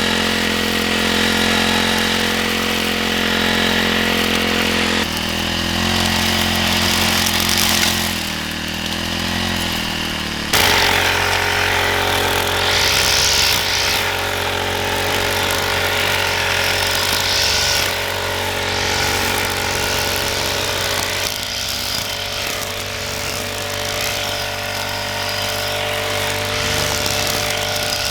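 A small engine running steadily, its pitch changing abruptly a few times.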